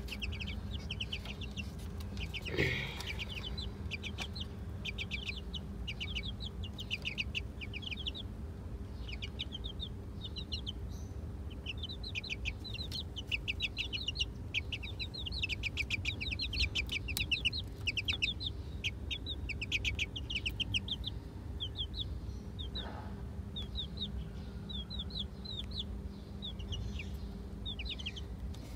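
Several young chicks peeping in quick runs of short, high, falling notes, over a steady low hum. One louder, lower sound comes about two and a half seconds in.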